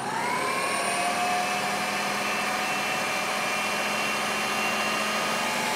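Countertop blender motor spinning up and running at a steady speed, mixing the dry naan-dough ingredients (flour, salt, sugar, yeast, milk powder) with its dough blade.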